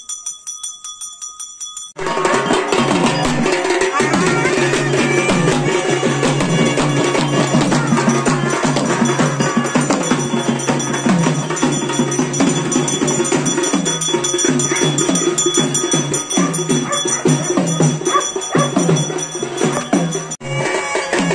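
A bell rings rapidly with a steady pulse for about two seconds. Then loud procession drumming starts abruptly, a dense, fast, continuous beat that keeps on through the rest, with a brief break near the end.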